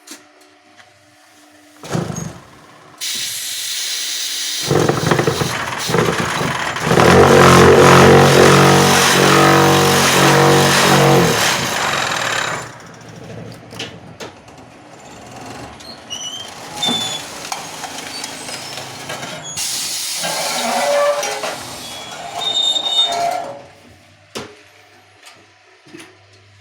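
Concrete-block vibropress working through a pressing cycle: hissing of compressed air from its pneumatic drives, then the vibrating table running loudly with a steady buzz for several seconds, and a second burst of air hiss near the end.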